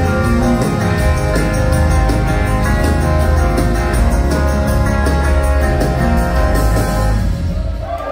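Live indie rock band playing held chords over a heavy bass, the closing bars of a song, dying away near the end.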